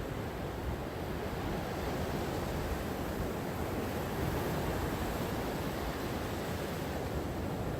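Gentle sea waves washing on the shore, a steady, even surf.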